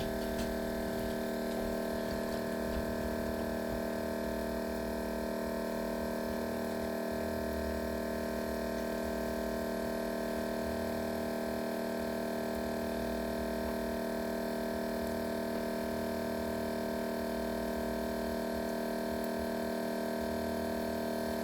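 Steady machine hum with many fixed tones and a fluctuating low rumble beneath it.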